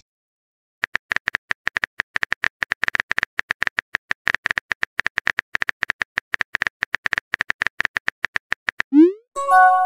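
Typing sound effect: rapid key clicks, about eight a second, for some eight seconds. Near the end a short rising swoosh and a chiming tone mark a chat message being sent.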